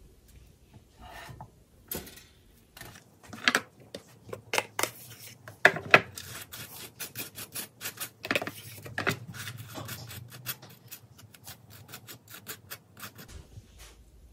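Table knife scraping butter across crisp toasted bread: a long run of quick, rasping strokes, with a few louder clicks among them.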